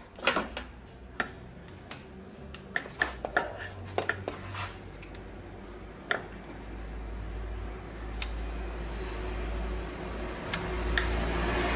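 Sharp metallic clicks and clinks of hand tools and fittings being handled on a car's air-conditioning compressor, a dozen or so in the first half. A low rumble slowly builds up in the second half.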